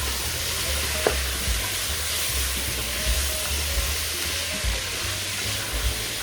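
Onion, red pepper and freshly added soaked red beans sizzling steadily in a pot while being stirred, with a sharp knock about a second in.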